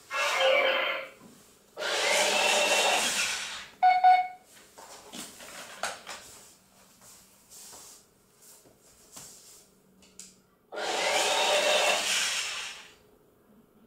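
Toy robot's small electric gear motors whirring in three bursts of one to two seconds as it moves its limbs, one rising in pitch as it spins up. A short electronic beep sounds about four seconds in.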